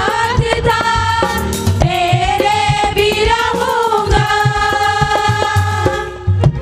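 Devotional Hindi worship music: a melody of long held notes that slide up and down, over steady drum beats.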